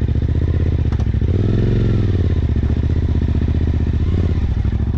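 Suzuki V-Strom motorcycle engine running steadily at low speed, carrying two riders on a sandy track, with a slight rise and fall in revs about a second and a half in.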